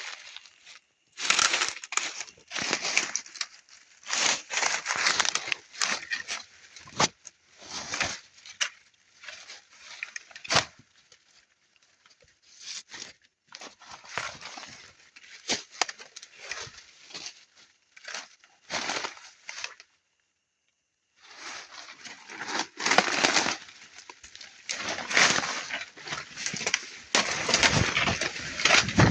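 Irregular rustling and crackling with sharp snaps, coming in bursts, with a pause of about a second past the middle.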